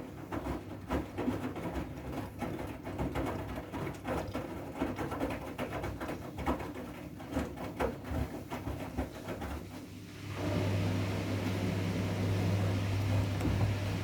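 Siemens i-Dos washing machine on its wool/delicate/silk programme: the drum turns gently, with irregular soft knocks and water swishing. About ten seconds in, a steady machine hum starts and holds.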